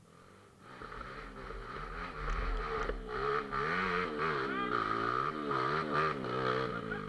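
Trail motorcycle engine revving up and down over and over, coming in about a second in and growing louder.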